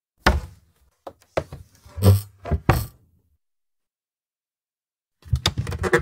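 Wooden kitchen cupboard doors knocking and thunking as they are opened and shut, about six sharp knocks in the first three seconds. After a silent gap, a quick run of rattling knocks starts about five seconds in.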